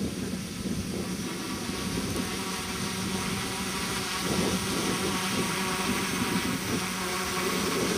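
Electric RC tricopter's three motors and propellers whirring steadily in flight, with a steady low hum, getting louder in the second half as it comes in low.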